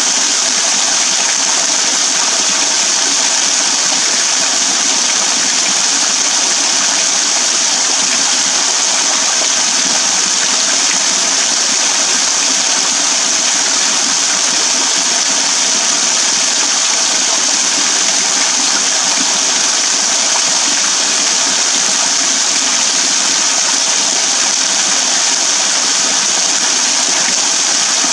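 Small waterfall pouring off a rock overhang and splashing into a shallow pool below: a steady, even hiss of falling water.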